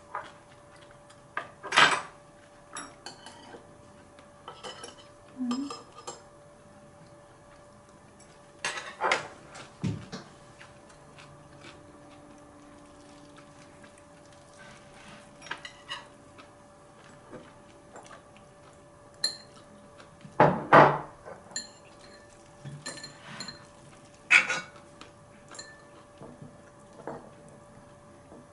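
Metal spoons and chopsticks clinking and scraping against ceramic bowls and an enamelled cast-iron pot while people eat, in scattered single clinks with a louder clatter about two-thirds of the way through. A faint steady hum runs underneath.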